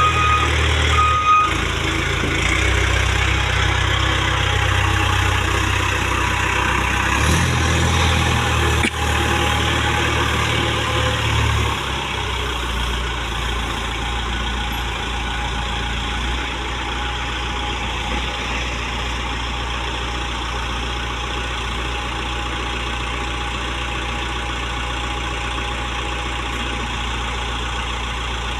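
Case 770 NXE backhoe loader's diesel engine running, with its reverse alarm beeping about a second in. About twelve seconds in the engine note drops and it runs on steadily and lower.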